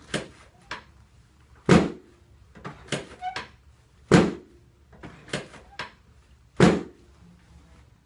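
Padded chiropractic treatment table knocking and thudding under downward thrusts on a patient's back during a spinal adjustment: three heavy thumps about two and a half seconds apart, with lighter knocks and a brief creak between them.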